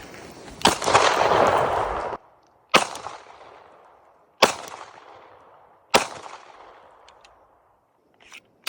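Glock 19 9mm pistol fired four times, roughly one and a half to two seconds apart, each shot echoing and dying away. A loud rushing noise follows the first shot for about a second and then cuts off. This is the first test-firing of a pistol newly assembled from mail-ordered parts, and it functions.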